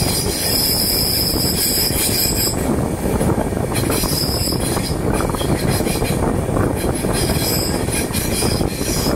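Passenger express train running, a steady loud rumble of wheels on the rails. A high metallic wheel squeal sounds over it, stops about two and a half seconds in, and comes back briefly near the end.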